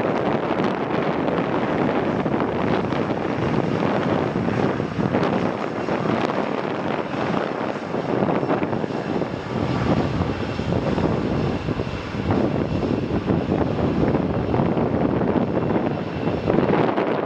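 Jet noise from a Boeing 777-300ER's GE90 turbofans: a loud, steady rush of engine noise, with a faint high whine through the middle.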